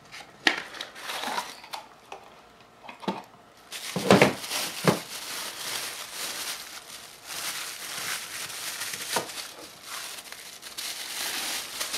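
Plastic packaging crinkling and tearing as puzzle cubes are unwrapped, with a few sharp knocks in the first half and dense, irregular crackling from about four seconds in.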